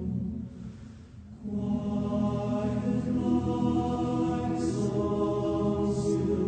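Slow music of sustained, chant-like choral voices holding long chords, with a brief dip in loudness about a second in before the chord swells back.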